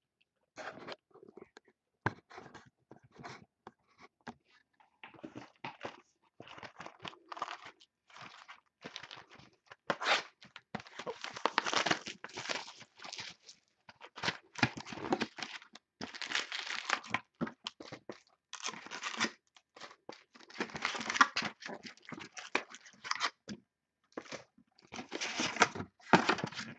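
Plastic shrink-wrap being torn and crinkled off a sealed cardboard box of trading cards, then the cardboard box lid being pulled open; irregular tearing and rustling.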